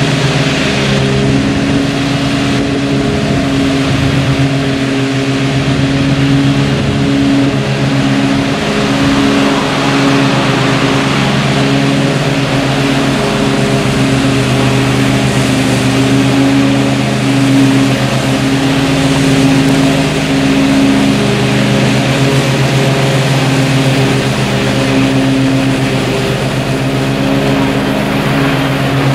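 Zero-turn riding mower engine running steadily while mowing grass, its pitch shifting slightly now and then as the mower moves and turns.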